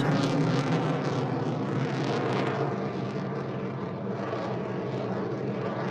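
Jet airplane's engine noise, a steady rushing that slowly fades as the plane moves away.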